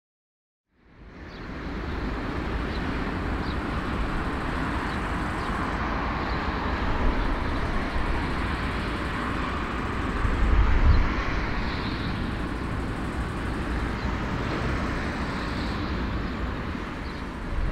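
Jet engines of a taxiing Airbus A340-300 airliner, starting about a second in: a steady rushing hum with a strong low rumble.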